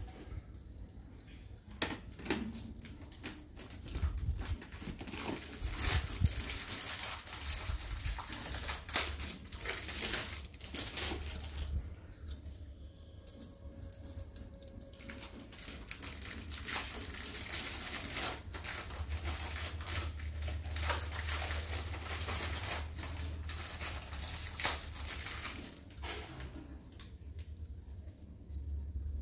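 Glass bangles clinking and tapping against each other as they are handled and set down, in irregular light clicks.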